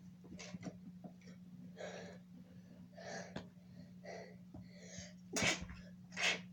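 A girl sneezing twice near the end, after a run of short breathy gasps building up to it.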